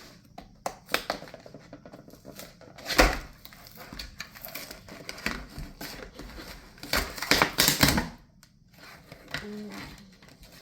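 Toy packaging being opened by hand: irregular plastic crackling and clicking, with louder crinkling bursts about three seconds in and again around seven to eight seconds.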